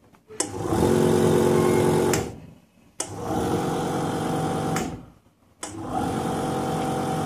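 Vacuum pump of an ACCO IFT vacuum therapy unit running in pulse mode. It hums for about two seconds, cuts out for under a second and starts again sharply, three times over.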